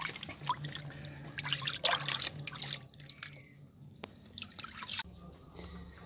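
Water splashing and dripping in a small basin as a hand bathes a zebra dove in it, in irregular splashes that are busiest in the first few seconds, strongest about two seconds in, and sparser towards the end.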